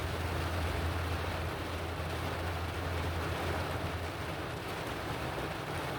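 Heavy rain falling on a car's roof and windows, a steady hiss, with a low steady hum underneath.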